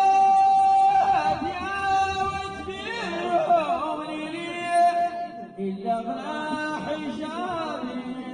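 Ahwach, the Amazigh collective chant: a group of voices singing long held, wavering notes without accompaniment.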